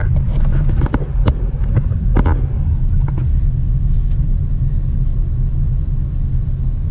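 Steady low rumble of a car driving, heard from inside the cabin, with several sharp knocks or rattles in the first three seconds.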